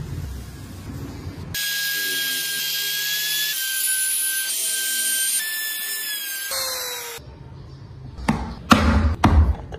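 Electric trim router running and cutting wood, a steady high whine that dips slightly in pitch under load. In the last couple of seconds, several loud wooden knocks as cut pieces are handled and fitted together.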